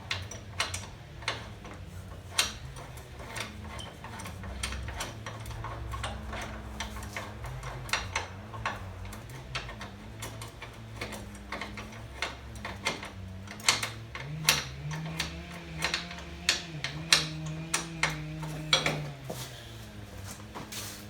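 Irregular sharp metallic clicks and ticks of hand tools working on the suspension bracket bolts, sometimes several in quick succession and thickest in the second half, over a steady low hum.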